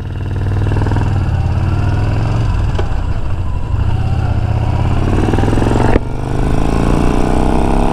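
Yamaha XV950 Bolt's air-cooled V-twin engine heard from the saddle as the bike pulls away and rides on steadily. About six seconds in there is a brief break for a gear change, then the revs climb again as it accelerates.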